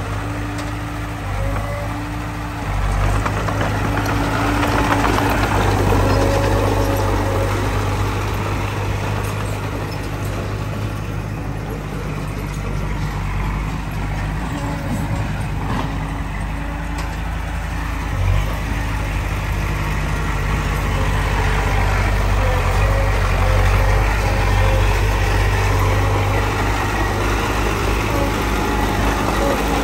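Komatsu D20P bulldozer's diesel engine running steadily under varying load, a low drone that swells about three seconds in, with a pitched whine that comes and goes above it.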